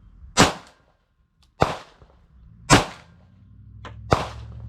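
Glock 17 9mm pistol fired four single shots at a slow, even pace, a little over a second apart, while sighting in its new fiber optic sights.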